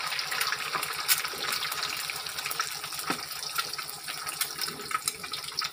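Eggs frying in hot oil in a steel wok: steady sizzling with a dense crackle of small pops.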